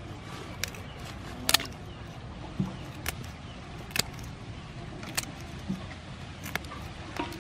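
Kitchen scissors snipping through blue crab shell and legs: about nine sharp, crisp snips at irregular intervals, the loudest about a second and a half in, over a steady low background rumble.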